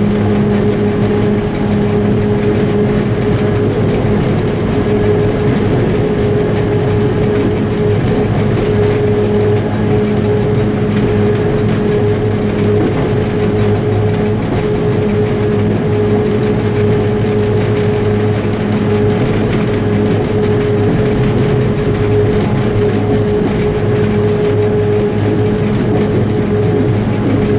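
M62-series diesel locomotive heard from inside its cab while the train runs: the diesel engine drones steadily with a few constant held tones over a dense running noise, unchanging throughout.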